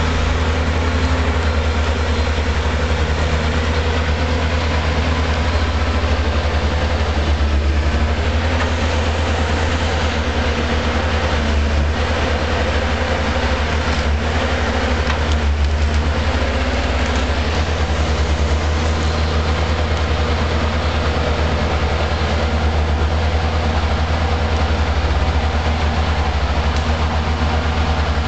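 Logset forest machine's diesel engine running steadily with a deep, even hum.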